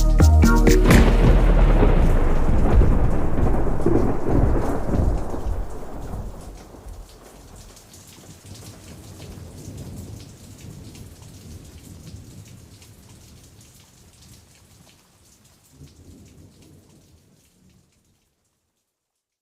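Thunder rolling over steady rain, loud at first and then slowly dying away until all is quiet.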